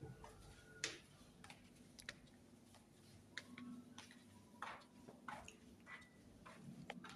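Near silence with faint, scattered clicks and ticks at irregular intervals, about a dozen, the loudest just under a second in.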